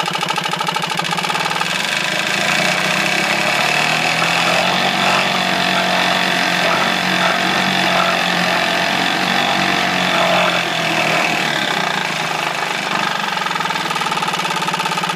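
1969 Johnson Seahorse 1.5 hp two-stroke outboard motor running with its propeller churning water in a tank. It speeds up about two seconds in, runs faster, then is throttled back to a slower, steady run about eleven seconds in.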